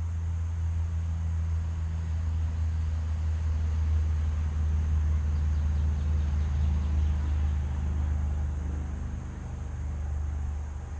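Skid steer engine running steadily: a low, even drone.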